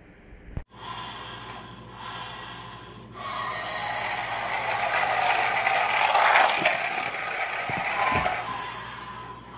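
Motorized 2009 Toy State Road Rippers Wheels Are Wild toy truck driving on a tile floor: its small electric motor and plastic gears whir and its plastic wheels scrape along. The sound starts about three seconds in, grows louder as the truck comes close to the microphone, then fades.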